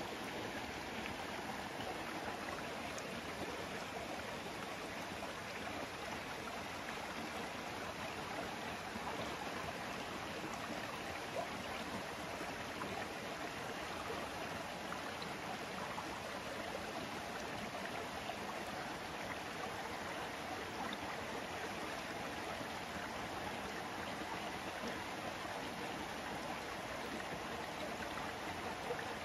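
Shallow rocky stream running steadily, a constant rush of flowing water.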